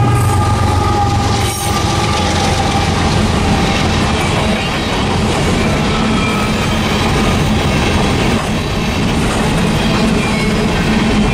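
Freight train rolling past, a loud, steady rumble and rattle of cars and wheels on the rails.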